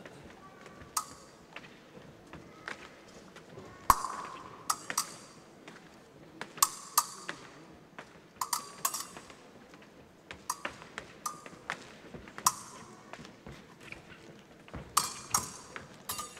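Épée blades clinking and ringing briefly as they meet, in irregular clashes, with footwork thuds on the piste; the loudest clash, with a thud, comes about four seconds in.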